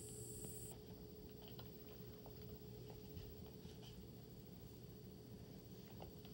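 Near silence: room tone with a steady faint hum and a few scattered faint clicks. A faint high whine stops under a second in.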